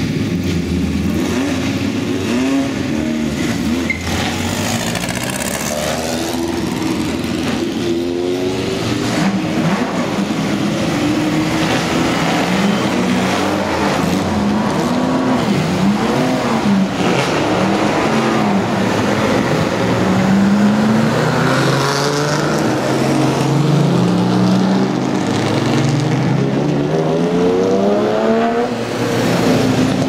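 Historic racing car engines idling and being blipped again and again, the revs rising and falling in quick swoops, as a car pulls away.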